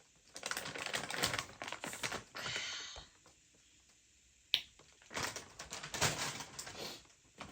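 Plastic snack wrappers crinkling and rattling as packets are handled, in two spells of rapid crackly clicks. Between them comes a short pause broken by a single sharp click.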